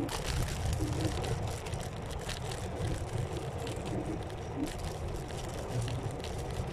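Electric scooter riding along a forest path: a steady low rumble with many small clicks and rattles from the ride over the ground.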